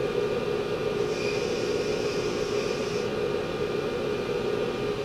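Wilton belt grinder running with a steady hum. From about one to three seconds in there is a higher hiss of a steel die being ground against the abrasive belt to take off the burrs.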